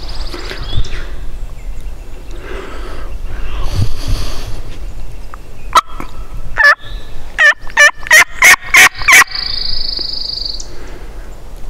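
Turkey calling: faint turkey gobbling in the first few seconds, then about six seconds in a loud, close run of some eight rapid turkey yelps lasting a little over two seconds. A thin, high songbird trill sounds at the very start and again just after the yelps.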